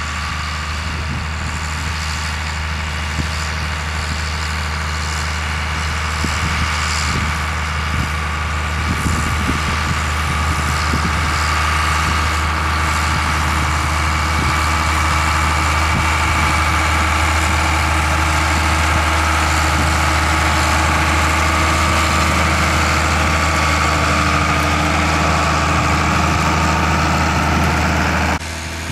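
Case IH 1455 XL tractor's six-cylinder turbo diesel running steadily under load while pulling a seed drill, with a whine over the engine note, growing louder as it comes up and passes close by. The sound drops suddenly near the end.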